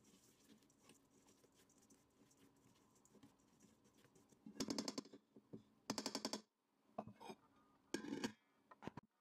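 A silicone spatula stirring damp grains in a stainless steel bowl: soft scraping, then a few short, louder scrapes against the metal. Near the end a ceramic plate is set on the bowl as a lid, with a brief clink.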